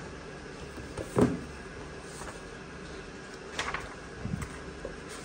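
A thick paperback book handled and opened on a desk: a single knock about a second in, then short paper rustles as pages are turned, twice.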